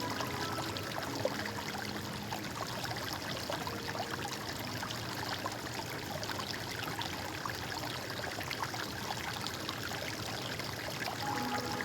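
Stream water flowing and trickling steadily over rocks, with a continuous splashing babble.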